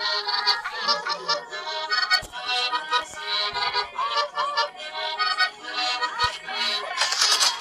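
Music made in a phone sound app: a busy, reedy, accordion-like melody of short pitched notes with some sliding tones and a few low thumps. A louder, hissier layer comes in near the end.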